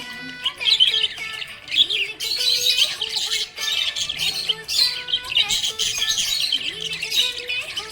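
A flock of small pet parrots chirping and twittering continuously in rapid, overlapping calls, with background music underneath.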